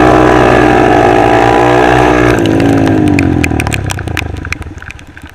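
Small 125 cc single-cylinder motorcycle engine at high revs under throttle, its pitch creeping up. A little over two seconds in the throttle closes and the revs fall away as the bike slows.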